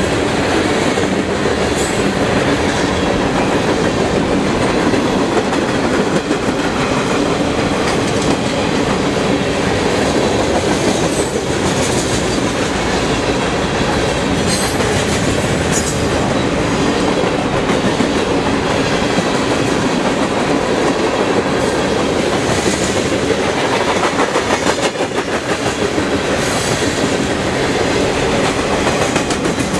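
Freight train cars rolling steadily past at speed, a loud continuous rumble of wheels on rail with occasional sharp clicks.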